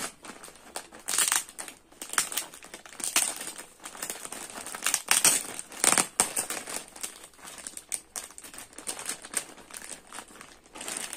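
Clear plastic poly bag crinkling in irregular bursts as hands open it and draw out a folded knitted garment. The loudest crinkle comes about six seconds in.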